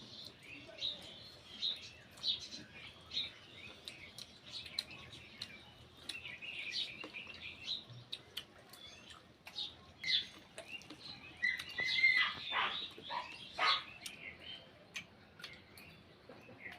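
Small birds chirping, many short calls that come in quick, uneven runs and thicken about twelve seconds in, with scattered light clicks.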